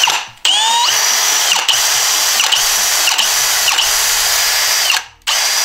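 Milwaukee M18 Fuel cordless drill running with no load, powered by its freshly rebuilt battery pack. After a short first burst, the motor spins up with a rising whine, holds at speed for about four seconds, stops, and runs again briefly near the end.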